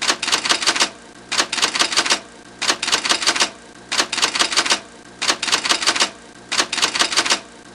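Typewriter key-clacking sound effect: bursts of rapid clacks, each about a second long, repeating roughly every 1.3 s.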